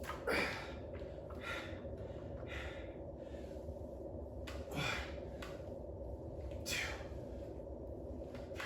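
A man breathing hard from exercise: short, forceful breaths about every one to two seconds, over a steady low hum.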